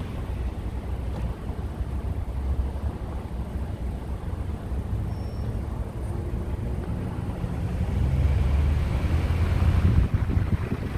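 Car driving: a steady low rumble of engine and tyres on the road, louder from about eight seconds in.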